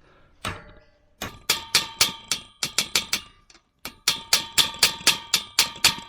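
Hammer striking an Allen key driven into the drilled-out, stripped hex socket of a Fox 40 fork's axle bolt, metal on metal with a ringing tone. Two runs of rapid strikes, about four a second, starting about a second in and again about four seconds in.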